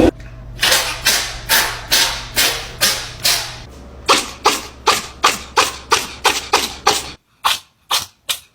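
A cat sneezing over and over in short, sharp bursts, about two a second at first, then about three a second from roughly four seconds in.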